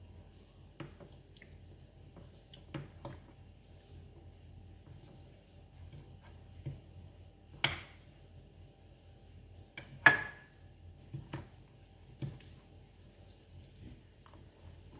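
Metal fork clicking and scraping against a plate as sticky rice is cut and scooped, with quiet chewing between. Two louder clinks come a couple of seconds apart past the middle, the second ringing briefly.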